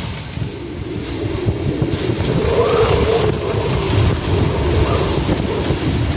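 Hurricane eyewall winds howling in gusts: a heavy rushing noise with a whistling tone that rises and falls in pitch, swelling strongest about three seconds in.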